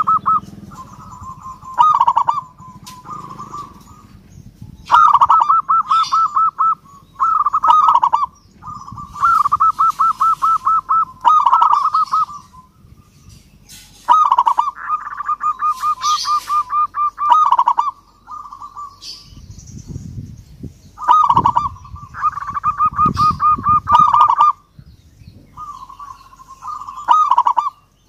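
Zebra dove (perkutut) cooing: phrase after phrase of rapid staccato coo notes, each phrase a second or two long, with short pauses between. Faint higher chirps come in between the phrases.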